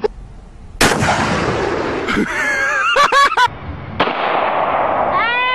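A sudden loud gunshot about a second in, with a long noisy tail, then people yelling, a second blast about three seconds later, and a long rising-then-falling scream near the end.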